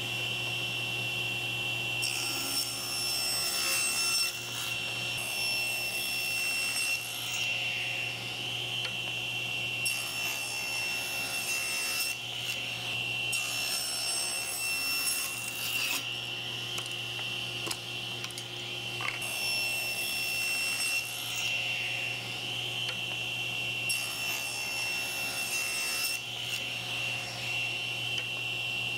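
Table saw running and ripping a series of narrow wood strips. A steady motor hum and blade whine run throughout, and the tone changes every couple of seconds as each strip is fed through the blade.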